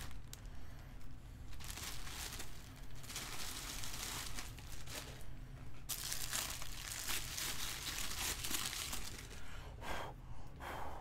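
Clear plastic bag crinkling and rustling as it is handled and pulled off a statue piece. The rustling comes in irregular bursts and is busiest from about six to nine seconds in.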